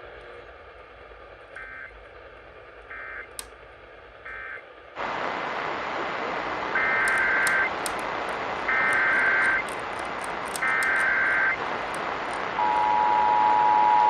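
Emergency Alert System tones: three faint, short bursts of two-pitch SAME data chirps (the end-of-message code), then a switch to a steady radio hiss over which three louder SAME header bursts play. Near the end the steady two-tone EAS attention signal begins.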